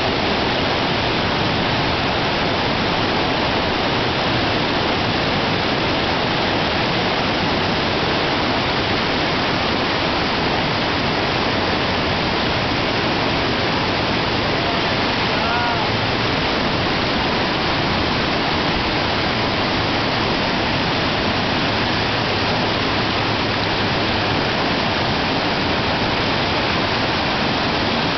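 Whitewater of a river rapid rushing with a constant, even roar.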